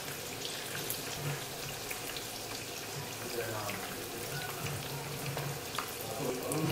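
Oil sizzling with a steady crackle as rolled taquitos fry in a skillet.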